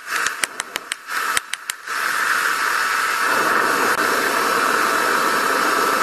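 A hand hammer striking a red-hot steel hammer head on the anvil: about eight quick blows in the first two seconds over the forge's hiss. Then the forge's steady rushing noise alone, fuller and louder from about three seconds in.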